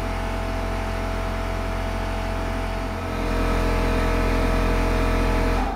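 Electric water pump running steadily as it pressurizes newly plumbed water supply lines for a pressure test; about three seconds in it grows louder and deeper, and near the end it shuts off and winds down over about a second.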